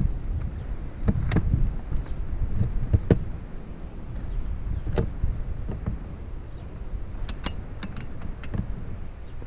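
Rooftop tent being pulled open by its aluminium telescopic ladder: scattered sharp clacks and knocks from the ladder and the tent's hinged frame, the loudest about three seconds in, over a low rumble.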